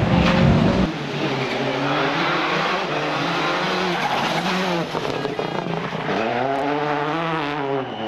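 Racing car engine revving hard, its pitch climbing and dropping again and again with gear changes and lift-offs, with a long rise and fall near the end. A heavy low rumble cuts off suddenly about a second in.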